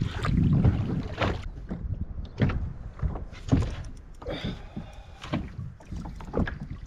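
Scattered knocks and thuds of gear being handled in a small rotomoulded plastic boat, over a low rumble at the start.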